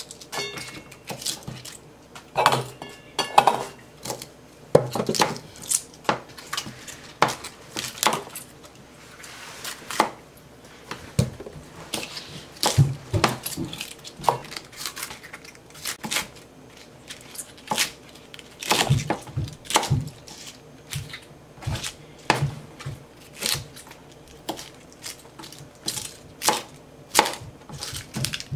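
Kitchen knife chopping cabbage leaves on a plastic cutting board: irregular sharp chops, one or two a second.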